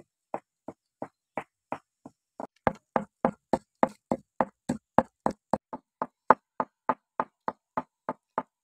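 Pestle pounding red chilies in a mortar: a steady run of knocks, about three a second, heavier from about two and a half seconds in.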